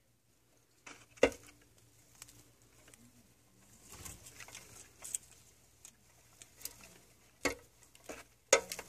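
Sharp taps and clicks from handling long metal feeding tweezers in the enclosure, with soft rustling. The loudest click is about a second in, and several more come close together near the end.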